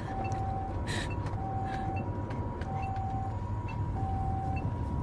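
Japanese ambulance siren sounding its two alternating tones, a higher and a lower note each held about two-thirds of a second, over the steady low rumble of the moving vehicle.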